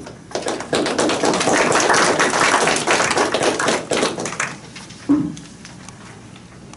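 A small audience clapping for about four seconds, the claps thinning out toward the end, then a single short thump about five seconds in.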